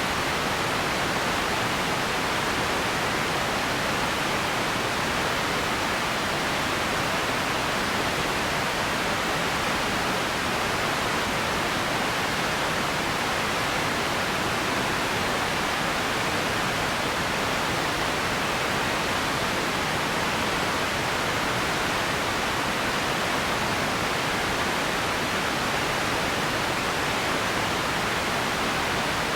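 Steady empty-ambience noise: an even, unchanging hiss, strongest in the upper middle of the range, with no distinct sounds in it.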